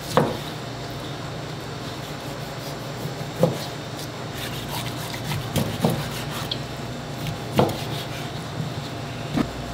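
Knife chopping on a wooden cutting board: about six separate, unevenly spaced chops over a steady kitchen hum.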